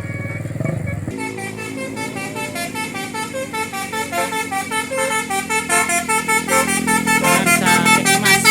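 A bus's engine running, then, about a second in, a telolet "basuri" multi-tone bus horn starts playing a fast melody of short notes, about five a second, getting louder toward the end.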